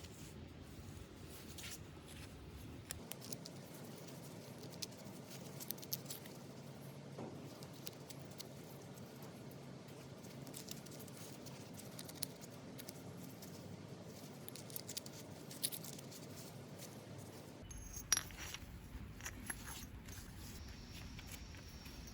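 Faint scattered clicks and light taps of small grinder parts being handled, with the sharpest click about 18 seconds in.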